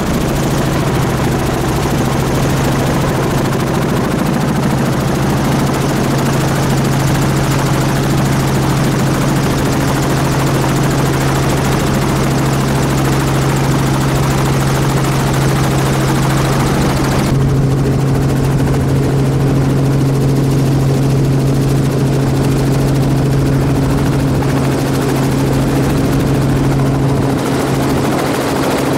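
Helicopter rotor and turbine noise heard from on board: a loud, steady drone with a constant low hum. The higher hiss on top drops away for about ten seconds from just past the middle, then returns.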